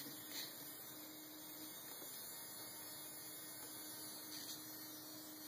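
Faint steady electrical hum over hiss, with two brief soft high-pitched blips, one about half a second in and one near the end.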